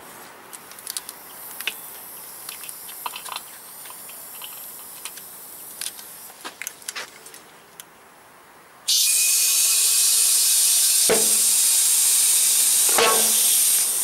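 Small clicks of the air-line chuck being fitted. About nine seconds in, compressed air starts hissing loudly and steadily into a Michelin Pilot Road 4 motorcycle tyre through the valve stem with its core removed. Two sharp bangs about two seconds apart follow as the tyre's beads pop into their seats on the rim: the sign the bead is seated.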